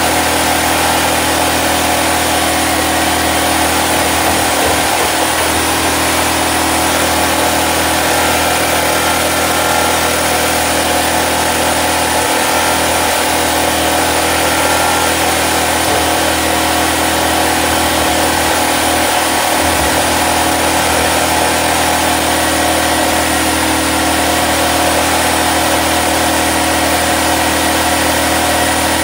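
Portable generator engine running at a steady speed, with no change in pitch or level.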